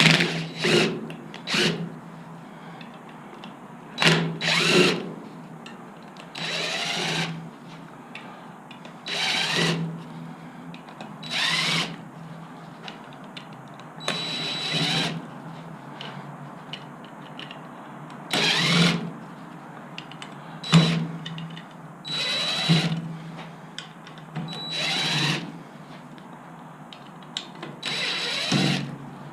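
Cordless drill/driver spinning in short runs, about a dozen times with pauses between, its pitch rising as each run spins up, while it backs steel screws out of aluminum poles.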